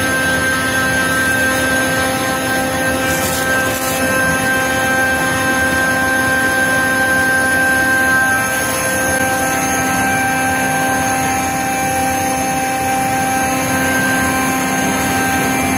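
Fusheng SA37 rotary screw air compressor running: a loud, steady machine drone with several constant whining tones, and a further tone joins about halfway through.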